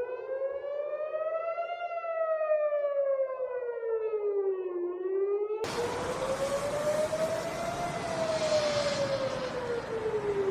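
Civil-defence warning siren wailing, its pitch rising and falling slowly in cycles of about six seconds: the alert for an incoming missile. About halfway through, a hiss of street noise starts suddenly under the same wail.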